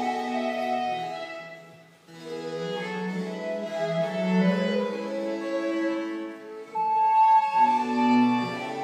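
Live chamber music played by violin, recorder, cello and harpsichord. A phrase dies away about two seconds in and the ensemble starts up again, with a strong held note near the end.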